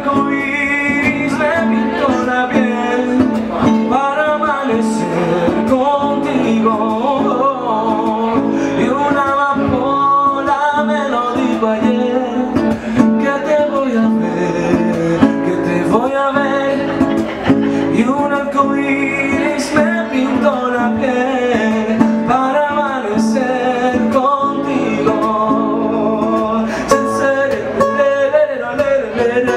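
Music: a man singing in Spanish to a strummed and plucked acoustic guitar.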